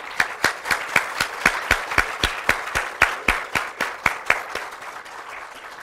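Audience applauding, with one pair of hands clapping loud and even at about four claps a second over the softer clapping of the room. The applause thins and dies away near the end.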